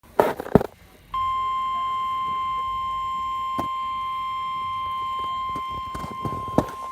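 Emergency alert warning tone, the single-pitch 1050 Hz weather-radio alarm tone: one steady, unbroken beep that starts about a second in and holds. It follows a couple of brief knocks at the very start.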